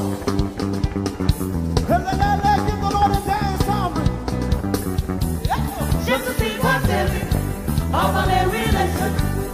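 Upbeat gospel praise music: a band plays a steady beat while a singer holds one long note, then sings shorter phrases.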